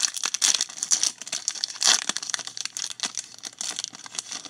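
Foil wrapper of a Topps Stadium Club trading-card pack crinkling and crackling as it is handled and torn open, with several sharp louder crackles.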